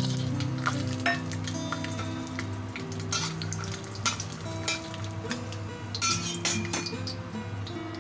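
Peanuts sizzling as they fry in hot oil in a wok, with a metal spatula scraping and clicking against the pan as they are stirred.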